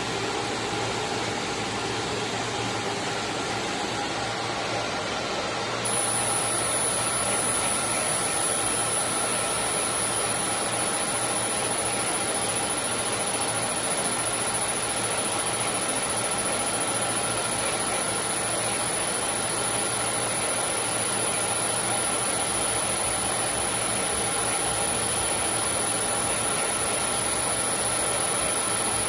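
CO2 laser marking machine running: a steady fan hiss with faint humming tones. About six seconds in, a high-pitched whine starts and gets a little louder. It stutters on and off for a few seconds, then holds steady.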